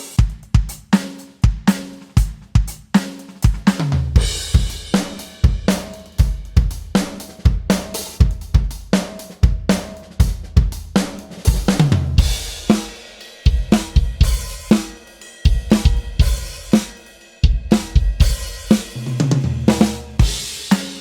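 Drum kit grooves played on an electronic drum module's samples: kick, snare, hi-hat and cymbals in a steady beat, with a fill about twelve seconds in and another near the end.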